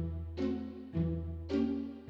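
Background music: pitched notes struck about twice a second, each fading away, over a steady bass.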